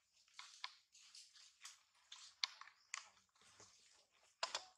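Macaque chewing and handling food: soft, irregular clicks and crackles, with a louder cluster near the end.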